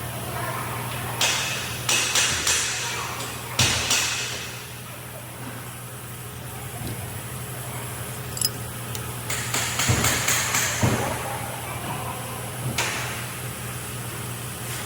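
Irregular knocks and taps of hand tools on metal, in two clusters, over a steady low hum.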